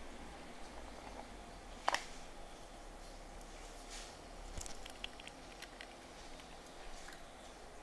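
Faint handling sounds: small clicks and taps as hands move plastic decorations and supplies around the slime tray, with one sharp click about two seconds in.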